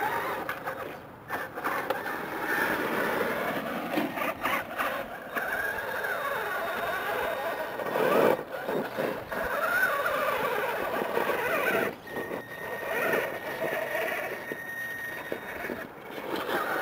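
Traxxas E-Maxx electric RC monster truck's twin motors whining, rising and falling in pitch with the throttle, while its tires scrabble and scrape over rock on a steep climb. There is a louder clatter about eight seconds in, as the truck lurches on the rock face.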